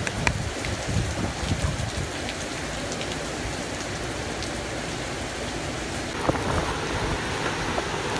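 Hurricane Maria's eyewall: heavy wind-driven rain making a steady hiss, with gusts that rise and fall in the low end and scattered drops ticking on nearby surfaces.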